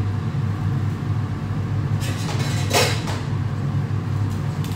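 Steady low hum of a commercial kitchen extractor hood fan, with a brief burst of noise about two seconds in.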